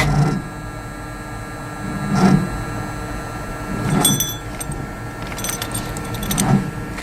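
Ford Ranger drag truck's engine being cranked in freezing cold without catching, with a low labouring pulse about every two seconds. It is a failed hard cold start, leaving the battery to be put on charge. Light key-like rattles come near the middle and toward the end.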